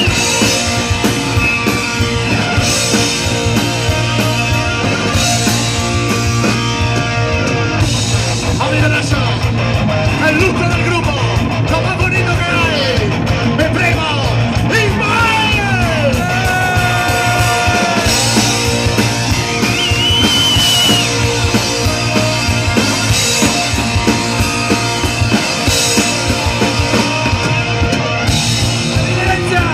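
A punk rock band playing live at full volume: electric guitars, bass and drums with shouted vocals. Sliding guitar notes stand out around the middle.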